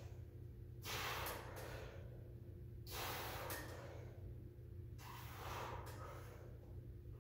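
A man breathing hard through a set of weight-lifting reps, three forceful breaths about two seconds apart, each under a second long, over a faint steady hum.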